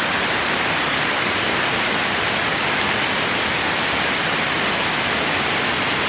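River water pouring over a low concrete dam spillway, a steady rushing noise.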